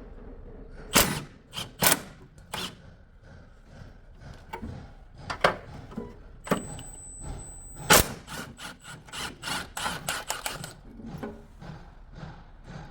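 Hand tools clinking and knocking on metal while the 14 mm subframe bolts are worked loose: a series of sharp, irregular clicks, the loudest about eight seconds in, and a quick run of clicks about nine to ten seconds in. A thin high tone sounds for about a second and a half just before the loudest click.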